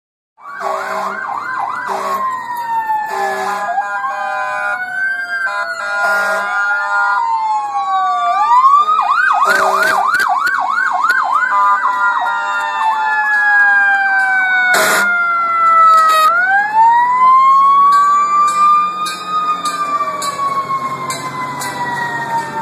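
Several emergency-vehicle sirens from police vehicles and fire engines sounding at once: slow wails rising and falling overlap with fast yelping sweeps. Short horn blasts cut in repeatedly.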